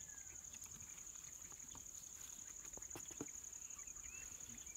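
Steady, high-pitched chirring of insects in the grass and trees, with a few faint clicks and one sharper click a little past three seconds in, and faint bird chirps near the end.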